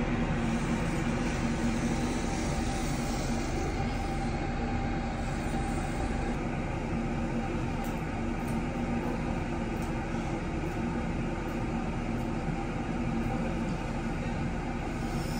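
A steady mechanical hum with a constant low tone over an even rushing noise.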